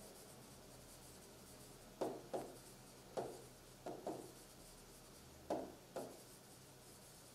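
Stylus writing on a pen tablet: about seven faint, short scratchy strokes, mostly in pairs, with pauses between them, over quiet room tone.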